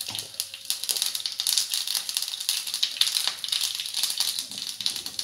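Mustard seeds sizzling and popping in hot oil: a dense, steady crackle of many sharp pops as the seeds splutter for a tempering.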